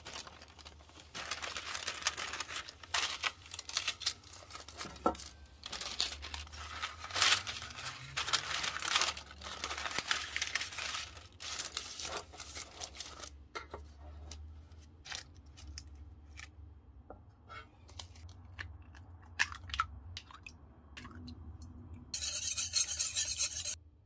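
Parchment paper crinkling and rustling as it is creased and pressed into a square metal cake pan, with light clicks of paper and fingertips against the pan. The crackling is dense at first and thins out to scattered clicks about halfway through, with a couple of seconds of steady, dense rustling near the end.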